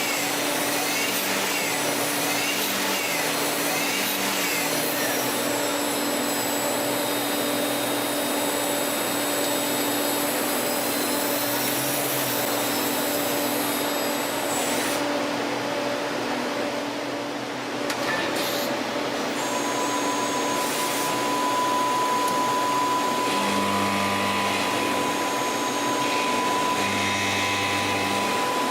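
CNC lathe machining with a steady mechanical whir and hum. High whines rise and fall repeatedly in the first few seconds, the hiss drops briefly about fifteen seconds in, and a steady high tone sets in around twenty seconds.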